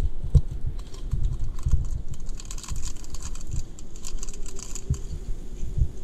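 Snowstorm precipitation pattering on a log shelter in quick light clicks, thickest from about two to five seconds in. Low irregular thumps of wind gust on the microphone run underneath.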